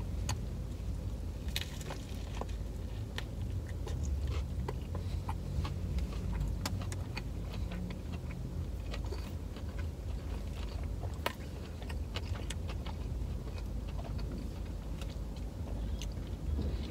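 Someone chewing a fried chicken sandwich with small, irregular mouth clicks and smacks, over a low steady rumble inside a car.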